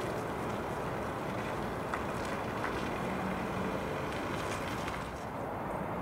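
Steady outdoor background rumble with no clear single source, with a few faint clicks and a brief faint hum about three seconds in.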